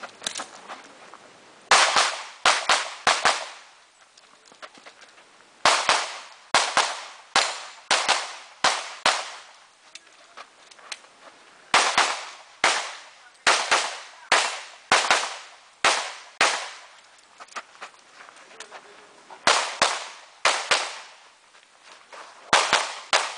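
Pistol shots fired in rapid pairs and quick strings, the first about two seconds in, with pauses of a second or two between groups as the shooter moves between firing positions.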